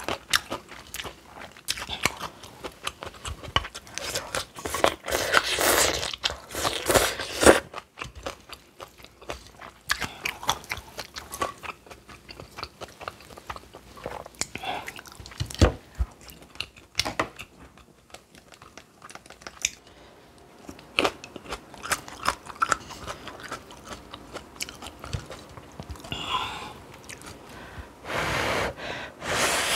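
A person eating spicy stir-fried instant noodles with kimchi and green chillies: many sharp crunchy bites and chewing, with a few longer, noisier stretches about five to seven seconds in and near the end.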